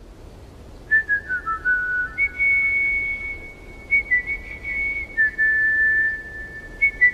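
A melody whistled in clear, pure notes. It starts about a second in with a few short notes stepping downward, then moves to longer held notes higher up, over a faint low hum.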